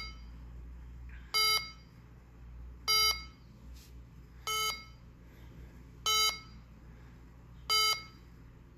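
Radionics alarm keypad's sounder giving its exit-delay warning: short beeps about every one and a half seconds, five in all, while the arming countdown runs out.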